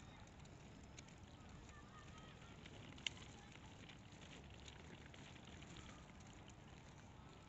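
Near silence: faint outdoor background hiss with scattered small clicks and one sharp click about three seconds in.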